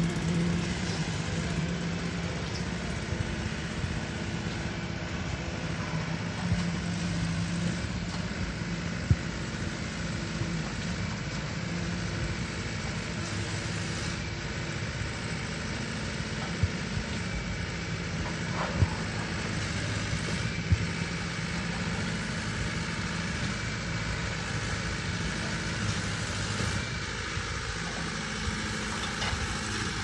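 Concrete pump's engine running steadily, with a few sharp knocks in the middle.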